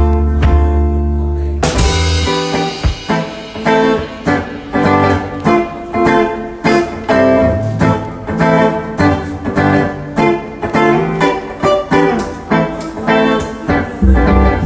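Hollow-body archtop electric guitar played live through an amp: a held chord over a deep low note rings out, then a bright strum about two seconds in, followed by chords and picked notes in a steady rhythm.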